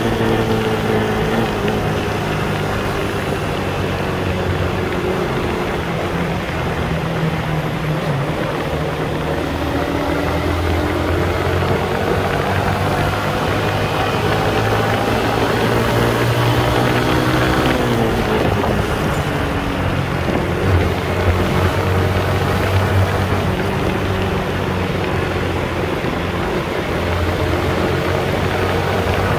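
Yamaha R15 V2's single-cylinder four-stroke engine running under way inside a road tunnel, over a steady rush of road and wind noise. Its pitch eases down, climbs slowly for several seconds, then drops sharply about eighteen seconds in.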